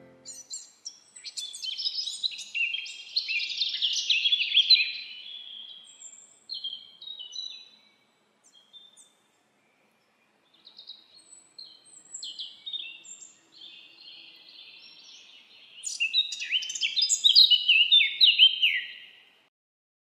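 Songbirds singing: groups of rapid, high, twittering chirps, loudest about four seconds in and again near the end, dying away shortly before the end.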